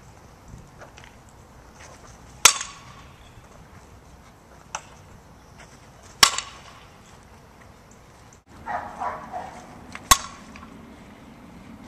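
Fastpitch softball bat hitting pitched balls: three sharp cracks, each with a brief ring, a few seconds apart. A short rough burst of another sound comes a little before the last hit.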